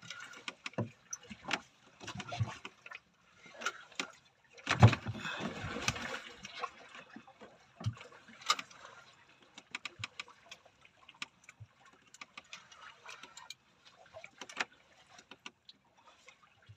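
Water lapping and splashing against a small fishing boat's hull, with irregular knocks and clicks on board; the loudest is a thump with a rush of water about five seconds in.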